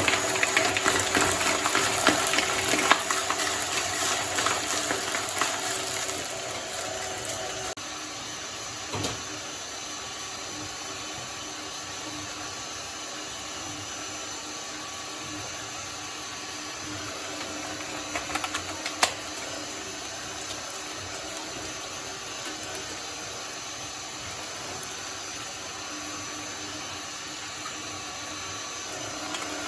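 A shredder chewing through slime, with wet crunching and squelching for the first several seconds; then the machine runs on more quietly and steadily, with a few isolated clicks.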